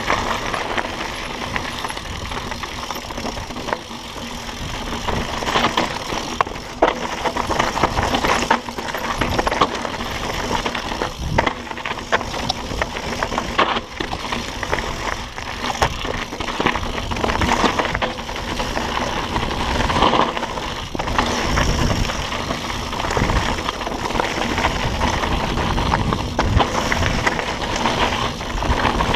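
Mountain bike with a suspension fork riding fast down a rocky dirt trail: tyres grinding over loose stones and gravel, with a constant rattle of sharp clicks and knocks from the bike bouncing over rocks.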